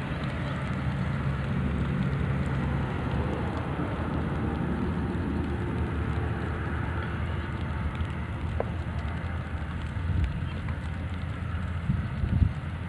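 Steady low rumble of toll-road traffic with light drizzle pattering on the water and grass; a short thump about twelve seconds in.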